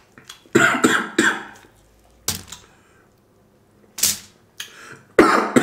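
A man coughing and clearing his throat in short, harsh bursts while eating. There are two coughs about half a second in, one more around four seconds, and a quick run of coughs starting near the end.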